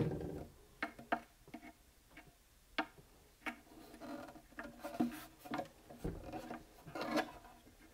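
Scattered light taps and clicks, about a dozen at irregular intervals, from handling a rusty metal fuel tank with a flashlight held against its filler neck.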